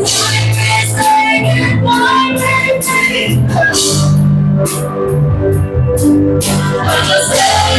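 Live band playing a rock ballad: a woman singing into a microphone over electric guitars, bass guitar, keyboard and drums with repeated cymbal strokes.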